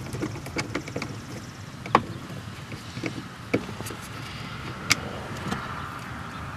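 Socket wrench with an extension backing a screw out of the actuator motor on a plastic heater box: scattered light clicks and taps of the tool and parts, with three sharper clicks about two, three and a half and five seconds in.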